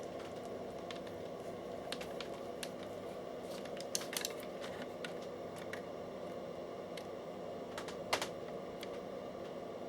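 Scattered light clicks and taps of small parts being handled as a projector's speakers are checked for a short with test probes, with louder taps about four and eight seconds in. A steady low hum runs underneath.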